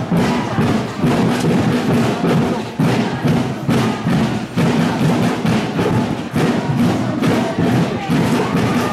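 Music with percussion.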